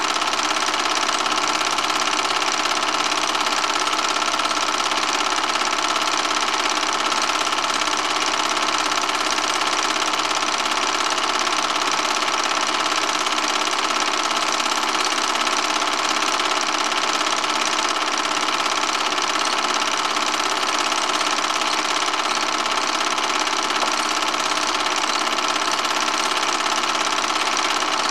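Home-movie film projector running: a steady mechanical whir and clatter at an even pitch.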